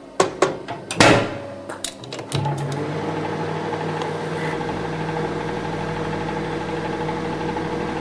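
A few sharp clicks and knocks as the microwave oven's mechanical timer dial is set. Then, a little over two seconds in, the oven starts and runs with a steady electrical hum.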